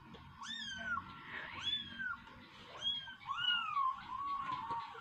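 Kittens mewing over and over: short, high-pitched calls that each rise and then fall in pitch, about seven in five seconds.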